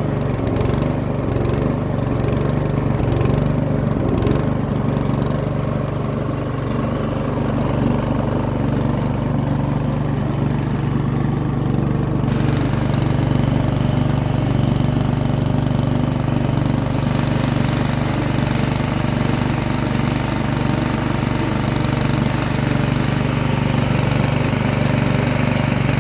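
Yard Machines snowblower's 179cc Powermore single-cylinder engine running steadily, the no-start cured by cleaning the carburetor. A steady hiss comes in suddenly about halfway through.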